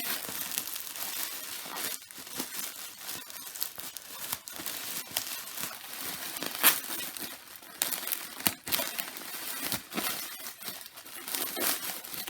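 Parcel packaging crinkling and rustling as it is opened and unpacked by hand, with scattered sharper crackles, the loudest about six and a half seconds in.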